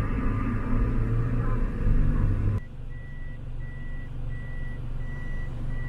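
Bus engine running with a heavy low rumble; about two and a half seconds in it cuts abruptly to a quieter engine idle under a high electronic warning beep that repeats steadily about every 0.7 s.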